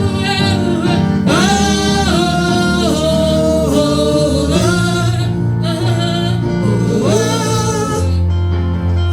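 Gospel worship song: a congregation sings with a band playing a steady accompaniment, the voices holding long notes.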